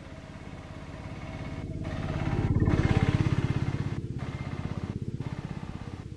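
Road vehicle engines: an autorickshaw passing close by and a bus approaching along the road. The engine noise has a fast pulsing beat, swells to its loudest about three seconds in, and then eases off.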